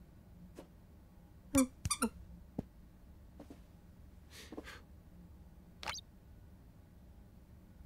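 A few short, quiet squeaks and light taps in a cartoon soundtrack, as the animated cat plays with a toy mouse; the loudest cluster comes about one and a half to two seconds in, with another squeak near six seconds.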